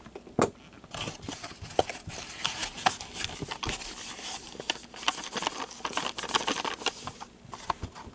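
A small cardboard trading-card box being torn open and handled by cotton-gloved hands: rustling and scraping cardboard with many sharp clicks, dying away about seven seconds in.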